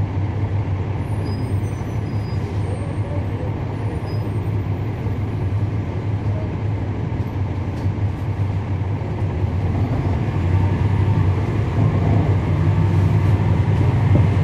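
Cummins ISL9 diesel engine of a 2011 NABI 416.15 transit bus running, heard from inside the bus as a steady low drone that grows louder about ten seconds in.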